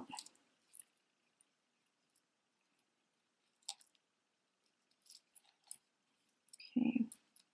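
Faint, scattered small clicks of a thin gold-tone metal chain necklace being handled and untangled by hand, with a brief hum of a voice near the end.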